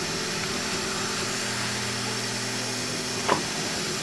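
Creality 3D printer running: a steady whir with low motor hums that switch on and off as the print head moves, and a short rising chirp about three seconds in.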